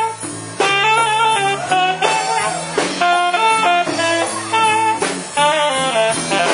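Saxophone playing a slow blues solo in phrases over the band's live guitar and bass backing, with a short break a fraction of a second in before the line picks up again.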